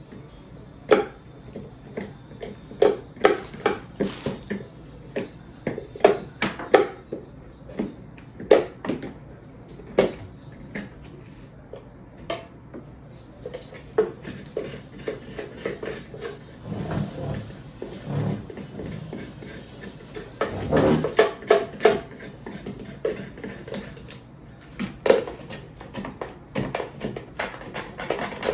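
Irregular knocks and clatter of a spoon against a bowl as hard brown sugar is scooped and broken up, with a couple of brief low rumbles of handling partway through.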